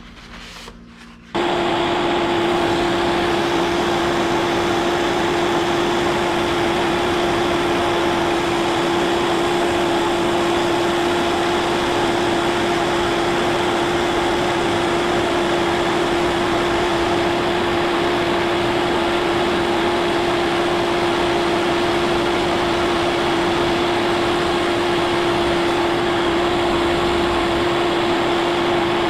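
Milling machine running as an end mill cuts the cast-iron machinist jack casting, a loud steady noise with a constant hum that starts suddenly about a second in.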